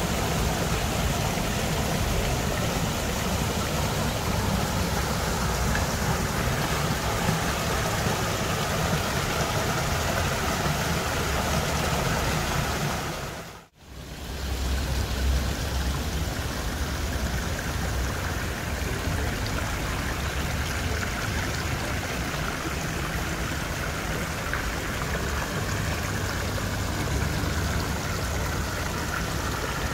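Steady rushing of flowing water from a garden stream and waterfall. It dips away briefly about halfway through, then comes back.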